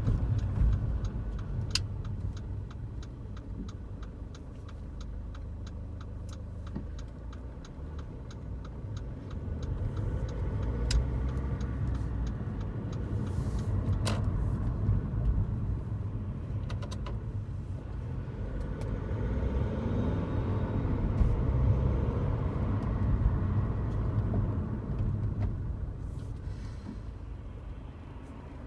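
Car on the move, heard from inside: steady road and engine rumble that swells and eases, with a rapid, even ticking over the first several seconds and a few single sharp clicks later.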